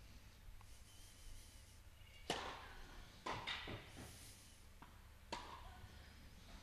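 Tennis rally in an indoor hall: sharp racquet-on-ball strikes and ball bounces, a few of them spaced about a second apart, each with a short ring of echo.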